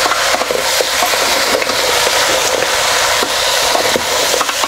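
Goat-head meat sizzling and crackling in a hot metal pot while it is stirred with a spatula, with many small clicks and scrapes. The meat has given off almost no water, so it is frying nearly dry.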